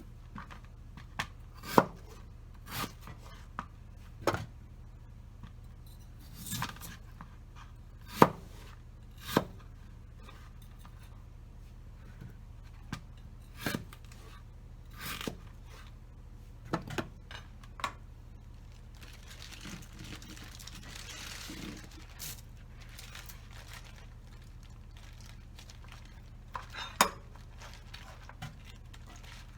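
Kitchen prep sounds: scattered sharp knocks and clinks of utensils and cookware being handled, some short scrapes, and a soft rustle lasting a couple of seconds about two-thirds of the way through.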